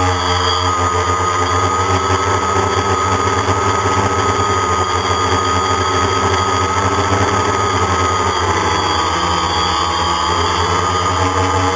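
DJI Phantom quadcopter's brushless motors and propellers whining steadily, heard from a GoPro mounted on the drone, with wind rumbling on the microphone. The pitch wavers slightly in the last few seconds.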